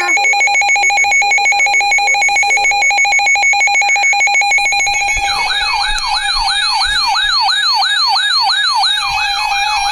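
Emergency Alert System attention tones: steady, rapidly pulsing electronic alert tones. About halfway through, a siren-like tone joins them, wailing up and down about three times a second, signalling an incoming severe thunderstorm warning.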